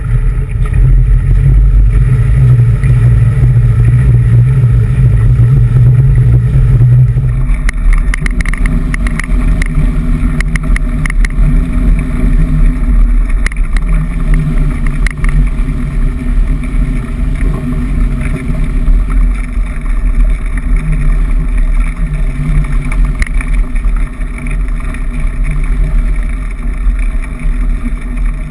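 Mountain bike wheels ploughing through deep floodwater, with continuous splashing and churning. The sound is picked up close by a camera mounted on the handlebars. About seven seconds in, the heavy low churning drops away and frequent clicks and rattles from the bike and spray come through over the water noise.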